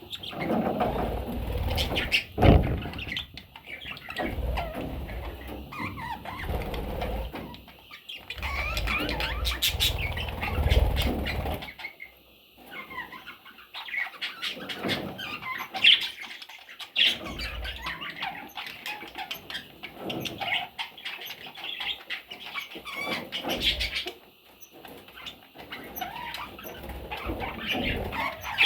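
Pet budgerigars chirping and chattering continuously, with bursts of wing flapping.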